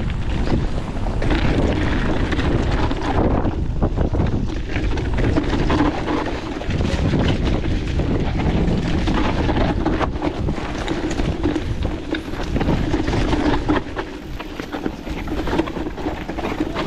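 Electric mountain bike ridden over a rough dirt trail: wind buffets the action camera's microphone over a steady rumble of tyres, with frequent knocks and rattles from the bike.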